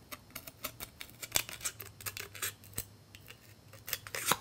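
Scissors cutting small slits into a piece of styrofoam: a run of short, irregular snips, the sharpest about a second and a half in and again near the end.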